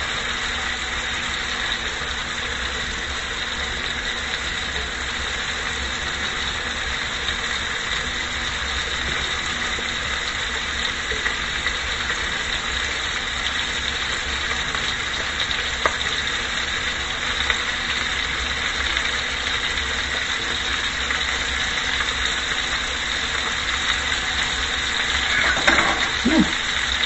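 Rib-eye steak and freshly added onion sizzling steadily in a skillet, with a steady hum underneath and a few light clicks.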